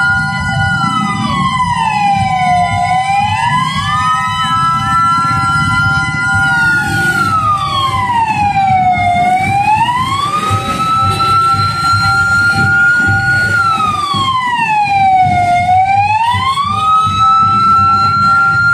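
Truck-mounted siren wailing in slow cycles: it holds a high pitch for a few seconds, slides down and back up, about once every six seconds. A steady lower tone runs under it, with a low engine rumble.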